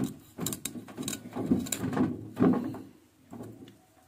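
A cleaver blade scraping down an upright corn cob, shaving the kernels off onto a wooden chopping board. It comes in a series of rough strokes that thin out near the end.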